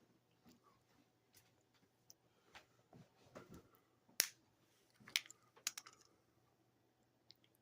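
Quiet handling noises: scattered faint taps and rustles, with one sharp click about four seconds in and a few more clicks just after five seconds.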